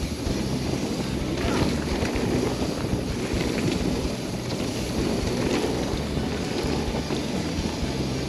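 Mountain bike descending a dirt singletrack at speed: tyres rolling over dirt and the bike rattling over the bumps, with wind rushing over the camera microphone.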